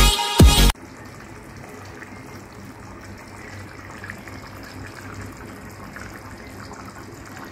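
Water running in a steady stream, a soft even hiss, after a brief burst of electronic music that cuts off abruptly at the start.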